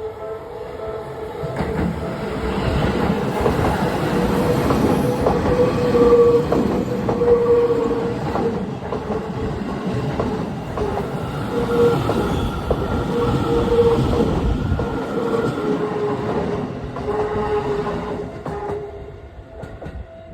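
Seibu 30000-series electric train passing over a level crossing, its wheels clattering over the rail joints as it builds, goes by and fades away near the end. Through it the crossing's warning bell keeps ringing with a steady pitched tone.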